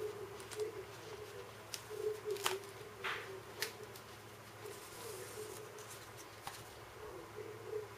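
Card-stock pages and pull-tabs of a pop-up book being handled: a scatter of light paper clicks and scrapes with a brief rustle about three seconds in. A faint wavering tone and low hum run underneath.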